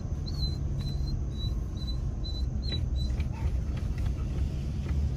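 Low, steady rumble of a tow vehicle creeping along with a 32-foot camper in tow, heard from inside the cab. Over the first three seconds a row of short, high chirps repeats about twice a second.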